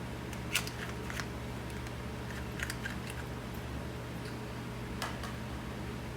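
A handful of short, sharp clicks and taps from handling new spark plugs and a spark plug gapper tool, the loudest about half a second in and another near the five-second mark, over a steady low background hum.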